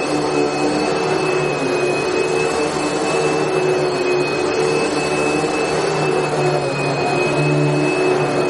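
Vacuum cleaner running steadily, a constant rushing hiss with a high motor whine over a low hum.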